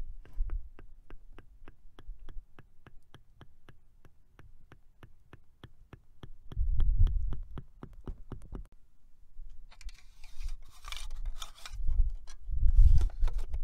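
Engine oil glugging as it is poured from a plastic bottle into the filler neck of a Renault 2.0 dCi diesel engine: low, uneven thumps, over a steady run of light ticks about five a second. Near the end the ticks stop and a plastic scraping follows as the filler cap is fitted.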